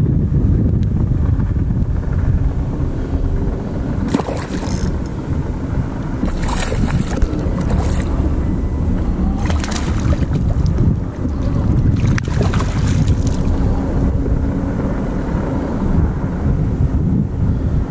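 Wind buffeting an action-camera microphone on a kayak, a steady low rumble, with water lapping at the hull. A few short bursts of hissing noise come and go over it.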